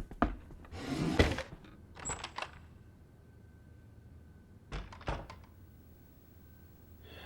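A few separate thuds and knocks: a short rushing sound ending in the loudest knock about a second in, a cluster of light clicks a second later, and two more knocks near the middle.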